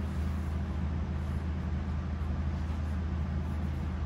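A steady low droning hum, unchanging throughout, with no distinct events in it.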